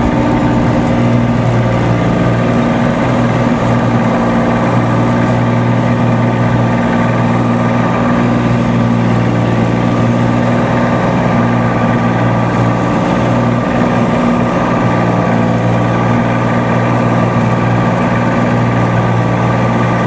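Cessna 182T's six-cylinder Lycoming IO-540 engine and propeller at full takeoff power, a steady drone heard inside the cabin through the takeoff roll, lift-off and climb.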